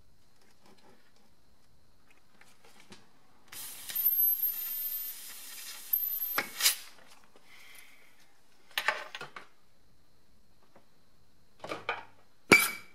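Compressed air from a blow gun hissing into a rusty brake caliper through its bleed nipple, driving the piston out of its bore. A long hiss with a high whistle, then shorter blasts and sharp metallic knocks, the loudest knock near the end.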